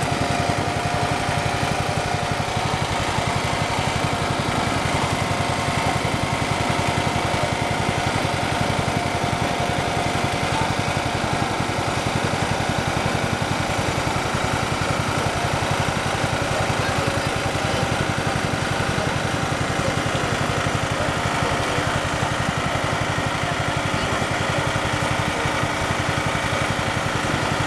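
A small engine running steadily at an even speed, a fast regular putter with a steady hum over it.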